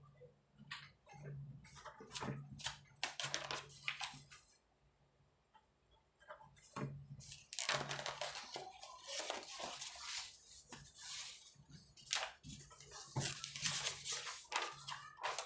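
Sheets of paper rustling and crackling as the pages of a thick document are flipped over and handled, in irregular bursts with a short lull near the middle.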